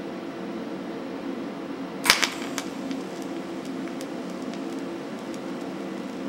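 TIG welder arc struck about two seconds in with a sharp crackle, then burning steadily while a touch-up bead is run over pits in a drive-axle U-joint's seal surface. A steady low hum runs underneath.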